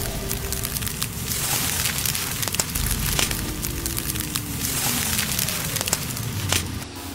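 Continuous crackling and sizzling with many scattered sharp pops and clicks, the sound of a small object being heated until its surface bubbles.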